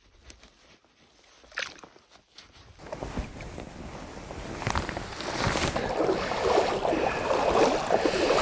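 Lake water sloshing and splashing around people wading knee-deep. It starts with quiet handling clicks, then the splashing builds from about three seconds in and grows louder.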